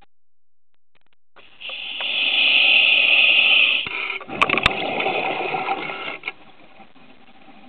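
Scuba diver breathing on a regulator: a steady hiss of about two seconds as air is drawn in, then a rush of exhaled bubbles lasting about two seconds, with two sharp clicks partway through.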